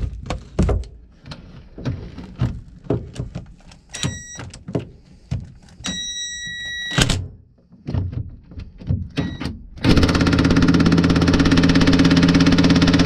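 Metal tools clinking and knocking as a socket and extension are worked onto an engine mount nut, with two short ringing metallic clinks. About ten seconds in, a power impact wrench starts hammering steadily on the nut.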